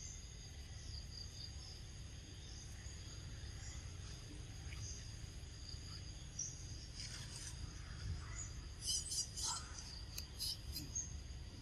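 Steady outdoor insect chorus, a few high shrill tones held on together over a low rumble of background noise. A few short high chirps come in quick succession about nine seconds in and once more a second or so later.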